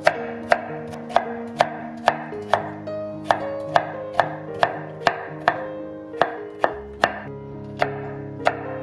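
A chef's knife chopping Korean zucchini into thin matchsticks on a wooden cutting board. The blade knocks sharply on the board about twice a second in a steady rhythm.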